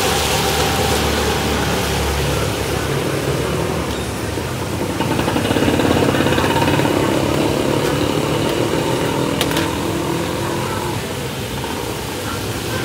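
Street traffic: a motor vehicle engine runs close by, growing louder a few seconds in as it passes and then easing off, with a faint whine over it.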